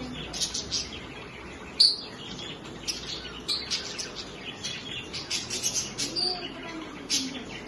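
Pet budgies (budgerigars) chirping and warbling: a run of short, high chirps with one louder call about two seconds in.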